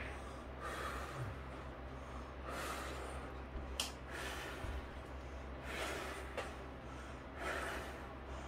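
A person breathing close to the microphone, with slow noisy breaths about every one and a half to two seconds. A single sharp click falls near the middle.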